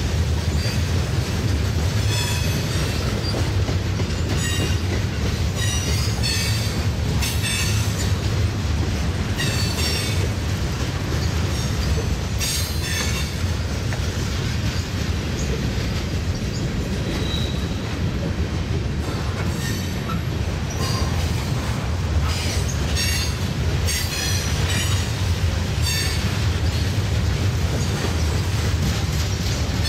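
Norfolk Southern freight train rolling past with a steady low rumble of wheels on rail. Short high-pitched wheel squeals recur every few seconds over the rumble.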